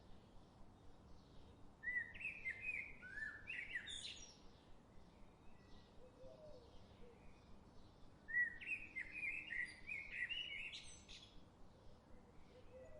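A songbird singing two short bursts of quick, varied chirping notes, several seconds apart, over a faint steady background hiss.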